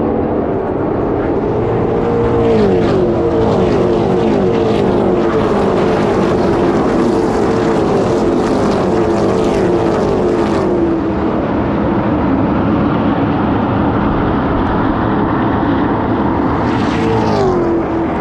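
NASCAR México Series stock cars' V8 engines running past on the oval as a pack, a steady engine drone whose pitch drops as cars go by, about three seconds in, around eleven seconds and again near the end.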